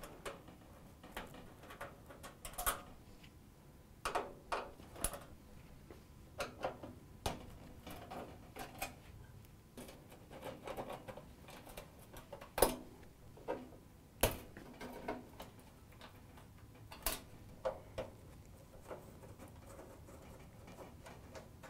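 Phillips screwdriver backing screws out of a gas range's sheet-metal rear panel: irregular light clicks and scrapes of metal on metal, with a few sharper ticks.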